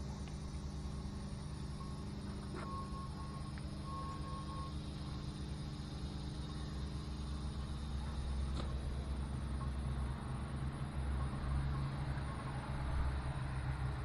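Engine of a 1967 Chevrolet C30 truck idling steadily with a low, even hum, getting a little louder about halfway through.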